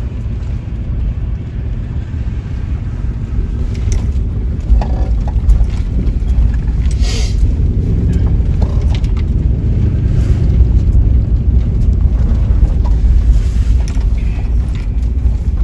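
A car on the move: a steady low rumble of road and engine noise, with a few faint knocks.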